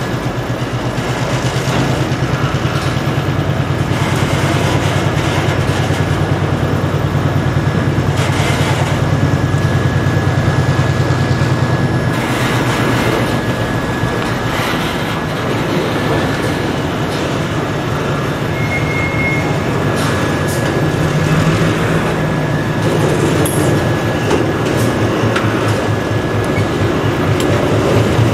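Loaded flatcars rolling slowly, wheels clicking and knocking over rail joints and the crossing, with a short high wheel squeal about two-thirds of the way through. Under it runs the low, steady drone of an EMD SW9 switcher's 12-cylinder 567 diesel engine shoving the cut.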